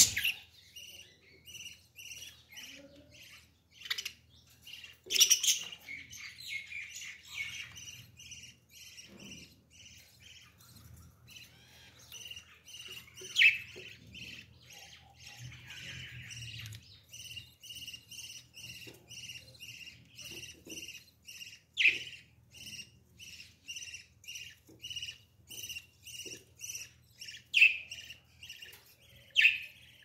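Budgerigars chirping: a steady run of short chirps, about three a second, with a few louder, sharper squawks scattered through.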